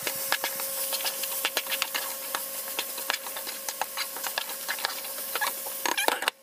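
Covered pot of seasoned chickpeas simmering on the stove: a steady hiss of steam with many small crackles and pops, over a faint steady hum.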